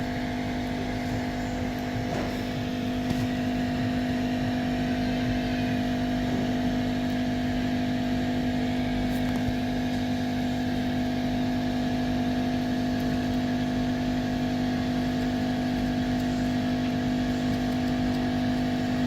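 A steady machine hum at a constant pitch, with fainter higher tones above it and no change in loudness.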